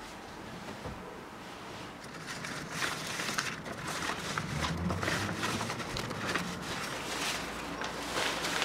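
Rustling and brushing of large plant leaves being handled and wiped by hand: a dense run of soft scrapes and crinkles that starts about two seconds in.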